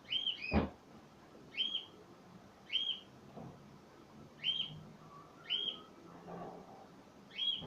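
A bird chirping, one short rise-and-fall call repeated roughly once a second, with a quick pair of extra falling notes near the start.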